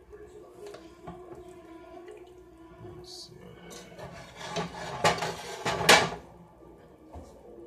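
Cookware clatter at a gas stove: a spoon scraping and tapping in a cast-iron skillet of cheese sauce while a metal bowl of noodles is handled, with two sharp clanks about five and six seconds in.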